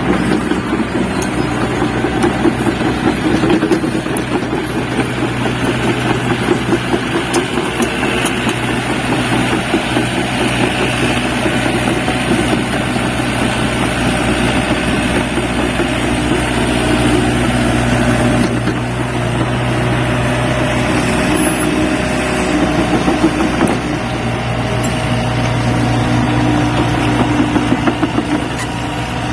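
Hyundai excavator's diesel engine running steadily as the machine works, its level swelling and easing with the load.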